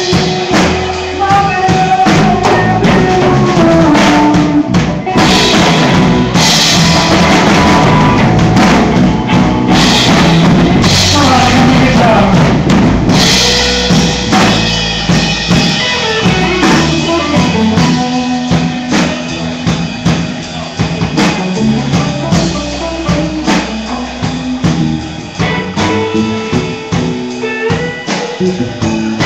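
Live band playing loud and without a break: drum kit and guitar, recorded through a phone's microphone.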